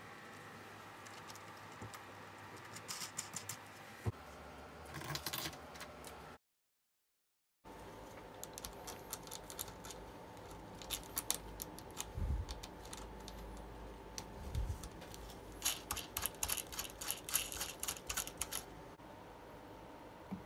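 Gloved hands handling and fitting small painted wooden trim pieces on a wooden model train car body: scattered light clicks, taps and rustling, with a couple of dull knocks a little past the middle. A short stretch of dead silence comes about a third of the way in.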